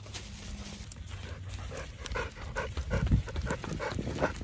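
Bernese mountain dog panting steadily, about three quick breaths a second, with a low thump about three seconds in.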